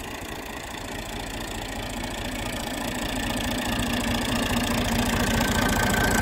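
Massey Ferguson 135 4WD tractor engine, freshly overhauled, idling steadily and getting gradually louder from about a second in.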